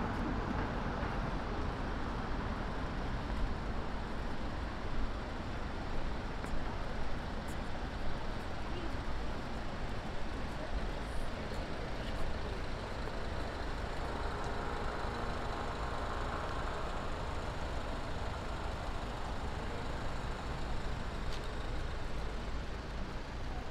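Steady city road traffic: a constant rumble of car, bus and truck engines idling and passing at a busy street crossing.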